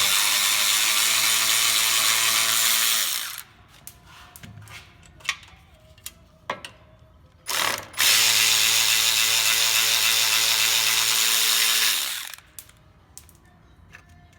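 Handheld power tool driving a fastener in two runs of about four seconds each. The motor's pitch sags as each run stops, and there is a short blip of the trigger and a few light clicks between them.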